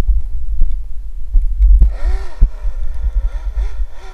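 Electric motor of a SkeeRide RC snowmobile on a 3S battery, whining in pitch arches that rise and fall with quick throttle blips from about two seconds in, over a steady low rumble.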